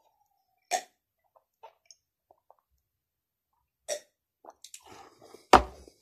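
A man drinking from a glass, with a few separate swallowing and mouth sounds spaced seconds apart and small ticks near the end. A single louder, sharp sound comes just before the end.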